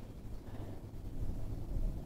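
Wind buffeting the microphone: an uneven low rumble, a little stronger in the second half.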